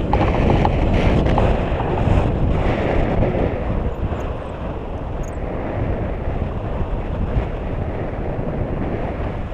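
Wind rushing over an action camera's microphone in paraglider flight: a steady low rumble and hiss of airflow, a little louder in the first few seconds.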